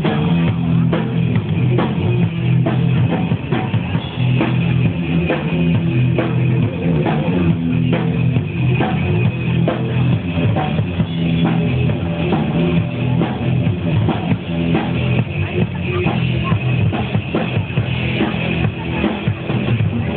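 Live rock band playing, with a drum kit keeping a steady beat under guitars.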